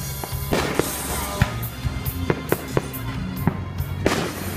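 Fireworks display: aerial shells going off in a quick series of sharp bangs and cracks, with a longer, louder burst about half a second in and another near the end, over background music.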